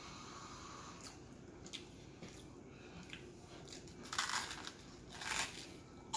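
Close-up eating sounds: a few small mouth clicks, then biting into and chewing a toasted sandwich of fried eggs, croquettes and provolone cheese, with two loud crunches about a second apart in the second half.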